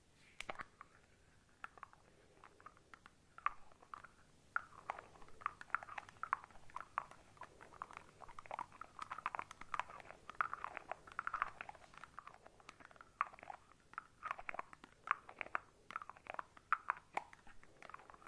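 Shaving cream foam squished and worked right up close to a 3D-audio microphone: a steady run of irregular, wet crackles and squelches, starting about half a second in.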